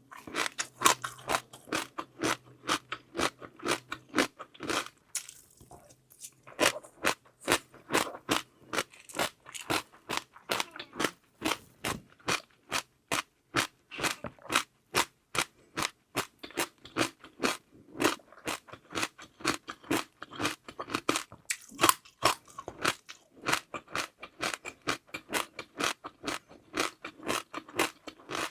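Close-up chewing of crunchy seaweed pearls: a steady run of sharp crunches, about three a second, with a short break about five seconds in.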